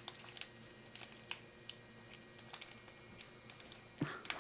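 Faint, scattered clicks and light crinkles of fingers picking at a sealed foil Pokémon booster pack wrapper, trying to get it open, with a louder crinkle near the end.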